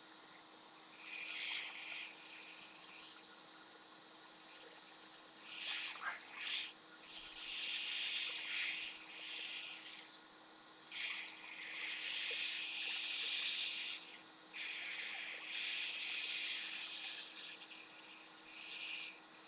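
Hot air rework station blowing through its nozzle: a high hiss that cuts in and out in stretches of a second or a few seconds at a time.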